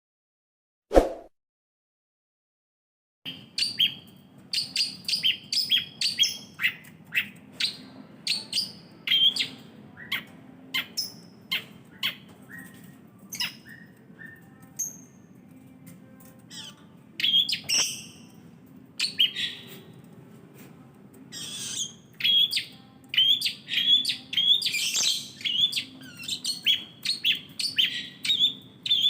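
Long-tailed shrike singing: a fast string of short, sharp chattering notes that starts about three seconds in and grows busier toward the end, over a faint low hum. A single sharp knock sounds about a second in, before the song begins.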